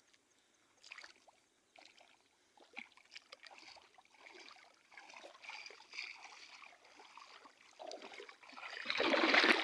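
Water splashing and trickling in small bursts, with a louder splash near the end.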